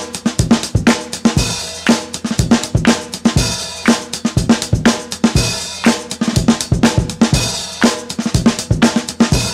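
Funk drum kit playing a break: kick drum, snare and cymbals keep a steady, busy beat, with the drums carrying the music nearly alone.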